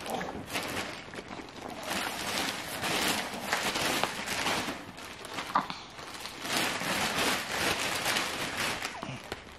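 Rustling and crinkling of a toddler hooded bath towel and its packaging being handled and unfolded, in uneven swells, with a brief sharp tick about halfway through.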